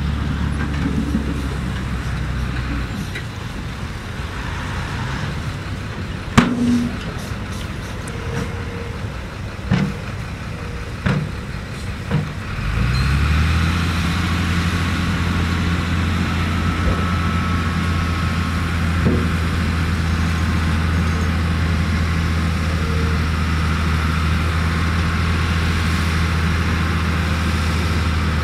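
Heavy diesel dump truck engines. A steady low engine hum stops about three seconds in, followed by a few sharp knocks. About thirteen seconds in an engine revs up and holds a steady run as the truck tips its loaded bed to dump dirt.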